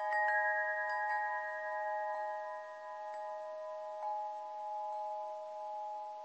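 Chimes ringing: clear struck notes, several in the first second and then about one a second, each held in a long steady ring so that several tones sound together.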